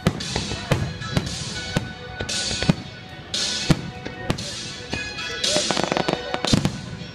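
Aerial fireworks shells going off in quick succession: sharp booms every half second to a second, with spells of high crackling hiss between them. Music plays underneath.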